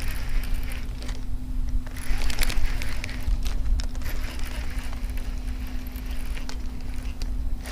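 Small electric trolling motor running with a steady hum, under a low rumble, with scattered clicks and rattles.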